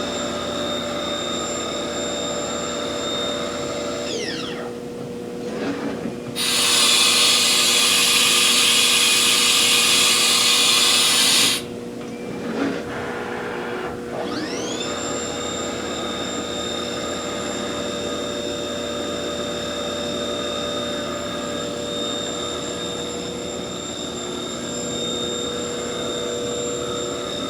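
Haas VF-1 vertical machining center running a program. The spindle's steady high whine winds down about four seconds in. A loud hiss then runs for about five seconds, and near the middle the spindle spins back up to a steady whine.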